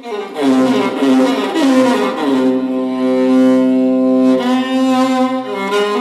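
Solo violin playing a slow melody: a phrase that steps downward to a long held low note in the middle, then moves on to higher notes.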